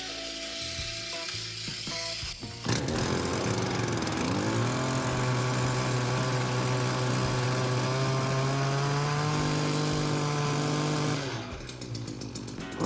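Stihl HT56 pole saw's two-stroke engine, running after its no-start repair: about three seconds in it revs up and holds steady high revs for about eight seconds, drops back near the end, then revs up again.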